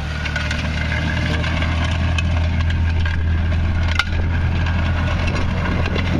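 Car engine running with a steady low drone, with irregular clicks and crackling rattles over it and one sharper click about four seconds in.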